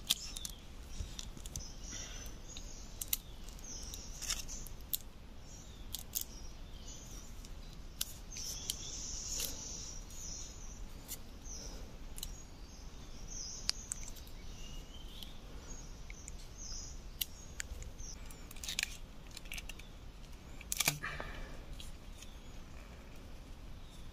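Scattered clicks and rustles of hands handling rubber bands and a bent green branch over dry leaf litter, with birds chirping now and then.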